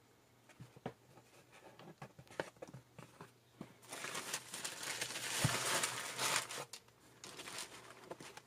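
Tissue paper crinkling and rustling as hands unfold it inside a cardboard shoebox. A few scattered light clicks and taps come first, then a dense crinkling about halfway through, easing off near the end.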